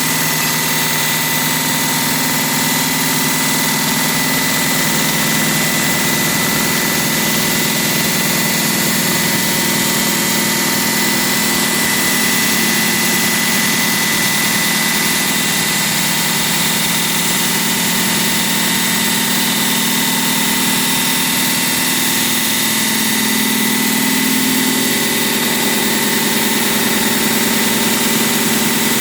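A construction machine's engine running steadily, its pitch wavering slightly, with a thin steady whine above it.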